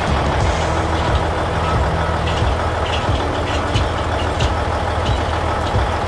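Large harvester engine running steadily with a low hum, the engine sound effect for an animated combine harvester.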